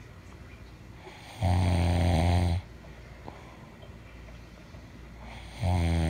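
A sleeping person snoring: two loud snores about four seconds apart, each a little over a second long, the second starting near the end, with quiet breathing between.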